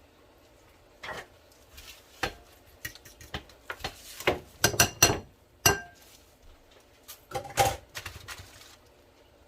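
Kitchen bowls and utensils knocking and clinking against each other: scattered taps, with a quick run of ringing clinks about four to six seconds in and another pair of knocks near seven and a half seconds.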